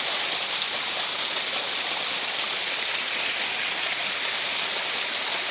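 Small natural waterfall of mountain water splashing and rushing steadily.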